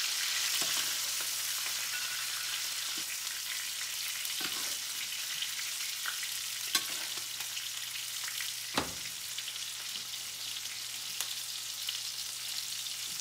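Filet mignon steaks sizzling steadily in hot butter and olive oil in a cast iron skillet. A spoon clicks against the pan a few times as the butter is spooned over the steaks.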